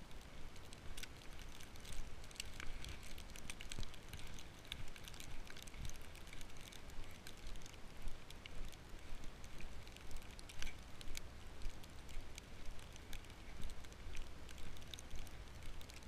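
Footsteps crunching through fresh snow at a steady walking pace, about three steps every two seconds, with crisp crackles in each step.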